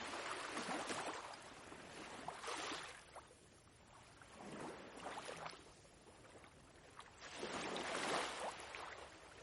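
Soft ocean waves: several faint swells of surf that wash in and fade, with near-quiet gaps between them.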